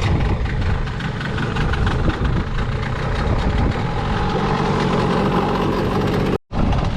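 A boat engine running steadily. The sound breaks off for an instant near the end and picks up again.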